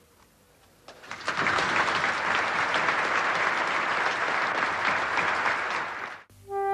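A large crowd applauding, starting about a second in and cutting off abruptly near the end.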